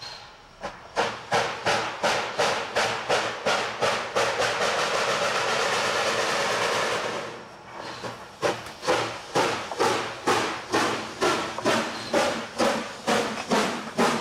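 Steam locomotive approaching under power, its exhaust chuffing in a steady beat of about two to three a second. In the middle the beats give way to a steady hiss for a few seconds, then the chuffing starts again.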